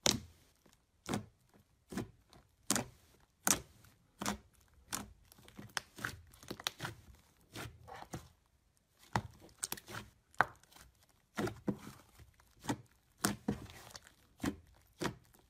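Hands kneading and pressing a thick, fluffy slime, giving a run of irregular sharp pops and crackles, about one or two a second with quicker clusters, as trapped air pockets burst.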